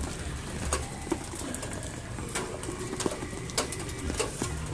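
Rain falling, with irregular sharp drips and splats of water on a wet patio, and a dove cooing now and then.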